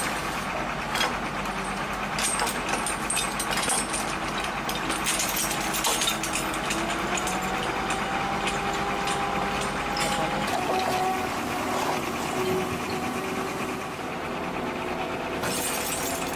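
Heavy machinery engine running steadily during the lift, its pitch creeping up a little midway, with scattered knocks and clicks over it.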